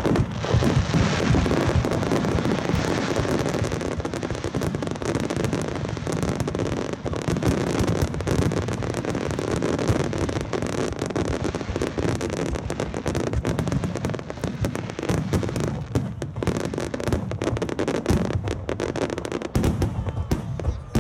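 Fireworks display: a continuous barrage of bangs and crackling from many aerial shells bursting in rapid succession, with deep booms underneath.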